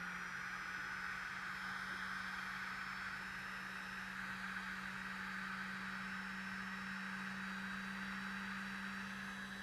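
A steady low hum with a whirring hiss over it, from the pedal-powered e-cycle generator setup while it runs and feeds power through the watt meter.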